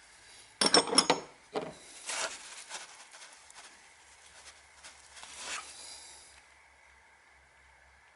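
Hard metal objects clattering and being handled: a quick run of sharp clanks about half a second in, then a few seconds of lighter clinks, knocks and scraping that die away.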